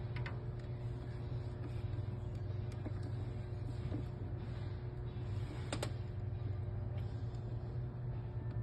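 Steady low hum of workshop background with a faint steady tone, broken by a few short clicks and taps.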